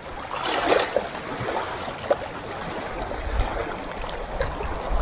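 Wind gusting on the microphone, with a clear plastic zip-top bag crinkling in hands: a few sharp crackles amid a steady rush, and gusts rumbling from about the middle on.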